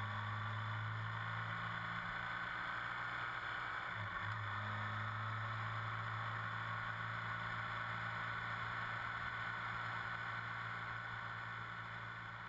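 BMW dual-sport motorcycle riding at a steady speed on a gravel road: an even engine tone with tyre and wind noise, fading out near the end.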